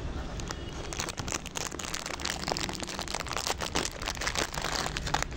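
A dog crunching dry biscuits, a quick, irregular run of crisp crunches from about a second in.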